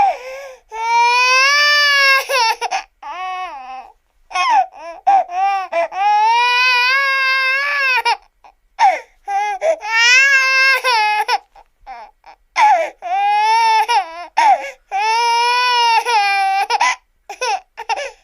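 Cartoon crying sound effect: a high, childlike voice wailing in long drawn-out cries that waver in pitch, broken by short gaps and quick sobbing catches.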